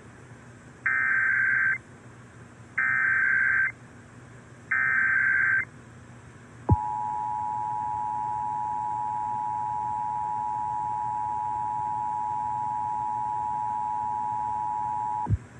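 Emergency Alert System header on broadcast radio: three short SAME data-tone bursts, each just under a second and about a second apart. A few seconds later the steady two-tone attention signal (853 and 960 Hz) plays for about eight and a half seconds and cuts off. Together they mark the start of a required monthly test.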